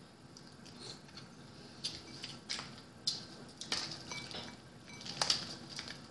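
Boiled blue crab shell being cracked and picked apart by hand: a scattered series of sharp cracks and clicks.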